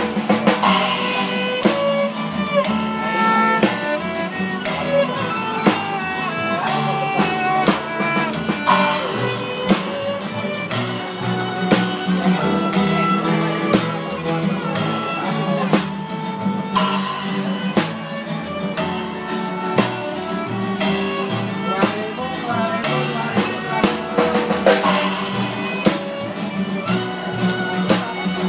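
Live busking band playing a song: a violin carries the melody over an acoustic guitar, with a drum keeping a steady beat and occasional cymbal crashes.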